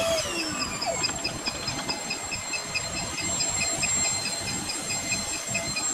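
Small electric motor of a homemade model car running with a steady high whine and a fast, even ticking, over the hiss of water churned up as it drives through the water.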